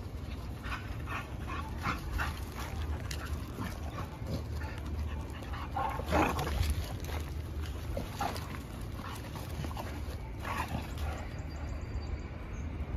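Two dogs vocalizing as they play-wrestle: a string of short calls, loudest about six seconds in.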